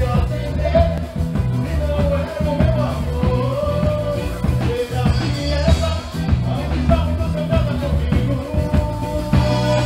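Live band playing samba rock: a singer and a horn section with trombones over a steady, heavy drum and bass beat.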